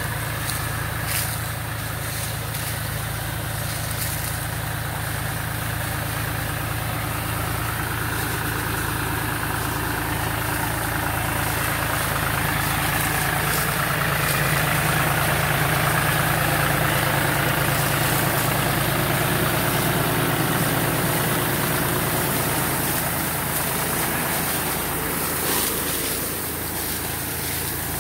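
Farm tractor engine running steadily while powering a tractor-mounted high-pressure orchard sprayer, getting louder in the middle as the tractor passes close and easing off near the end.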